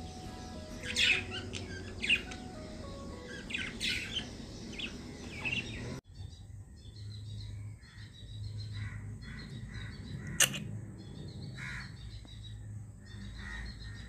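Caged lovebirds and budgies chirping over background music for the first half. After an abrupt cut about six seconds in, the music stops and the chirping goes on, with a sharp click near ten seconds.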